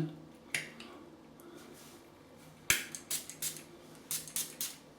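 Small cologne spray bottle's atomizer pumped in short hissing spritzes, in two quick runs of several sprays each in the second half.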